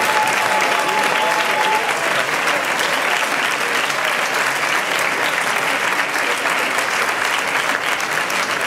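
Audience applauding steadily in a large hall, with a single held high tone for about the first two seconds.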